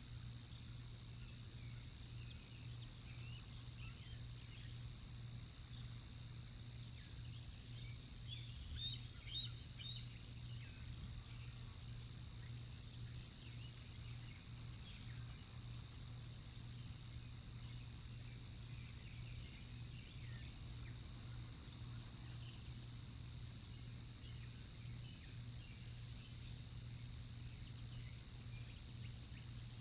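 Steady outdoor background with a constant low electrical hum and faint scattered high chirps. About nine seconds in comes a brief burst of louder, high-pitched bird calls.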